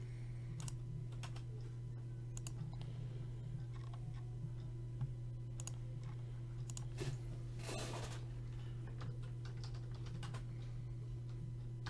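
Faint, scattered taps and clicks of a computer keyboard and mouse, over a steady low hum.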